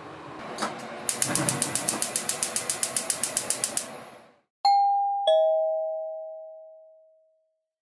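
Gas stove igniter clicking rapidly, about eight clicks a second for about three seconds. Then a two-note ding-dong chime, the second note lower, both ringing out.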